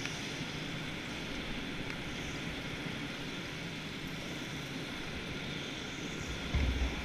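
A go-kart driving, heard from a helmet-mounted camera: a steady engine-and-motion noise at an even level, with a few low thumps near the end.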